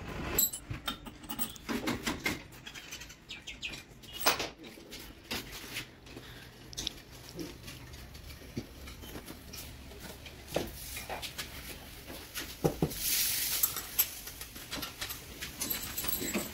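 Scattered light clinks and knocks of engine parts and hand tools being handled while an engine is reassembled, with a brief hiss about thirteen seconds in.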